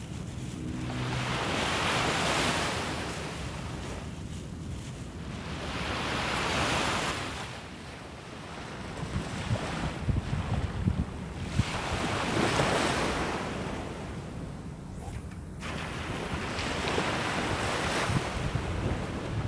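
Small sea waves breaking and washing up a sandy beach, the surf swelling and falling back four times, with wind buffeting the microphone in gusts.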